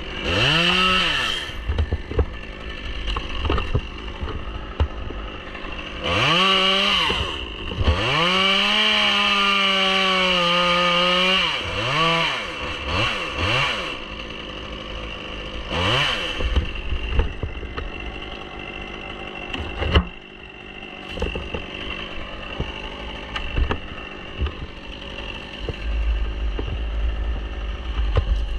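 Two-stroke Stihl chainsaw revved in quick blips, then held at full throttle for about three and a half seconds from about eight seconds in, sawing through dead birch, before a few more short revs and dropping back to idle. A single sharp click about twenty seconds in.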